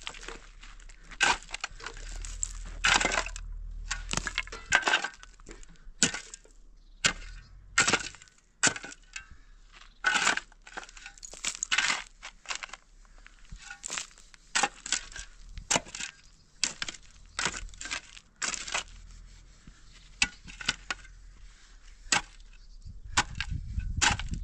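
Long-handled shovel digging into loose stony soil: irregular crunching scrapes and clinks of the blade driving into gravel and rocks, about one stroke a second.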